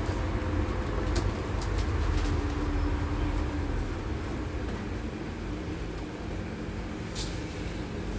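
Inside a biogas-powered Scania N280UD double-decker bus: low engine and road rumble while it drives, growing quieter about halfway through as the bus slows, leaving a steady hum. A few faint clicks and rattles.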